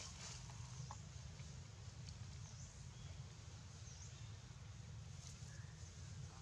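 Quiet outdoor ambience: a steady low rumble with a few faint clicks and short, high bird chirps every second or two.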